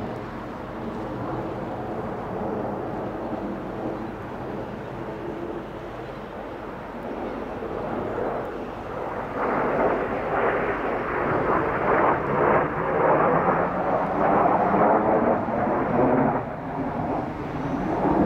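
Jet noise from a formation of Kawasaki T-4 jets flying an aerobatic display: a steady distant drone that grows much louder about nine seconds in, stays loud and rumbling with rises and falls for about seven seconds, then eases off.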